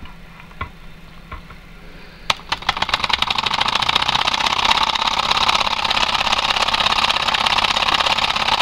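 Miniature single-cylinder vertical solenoid engine starting: a sharp click about two seconds in, then the mechanism picks up within half a second to a steady, rapid, even clicking as the coil pulls the piston on each turn of the flywheel.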